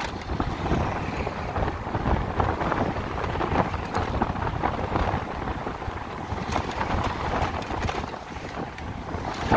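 Wind rushing and buffeting over the microphone on a moving motorcycle, a steady noisy roar that rises and falls in gusts.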